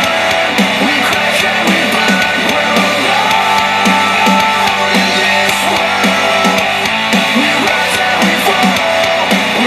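Instrumental rock track with guitar, played through a Star Wars Millennium Falcon Bluetooth speaker.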